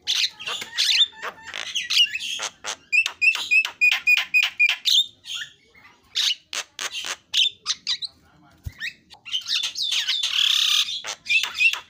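Javan myna singing a fast, varied song of chirps, whistles and harsh squawks. About halfway through a quick run of repeated notes stands out, and a harsh rasping call comes near the end.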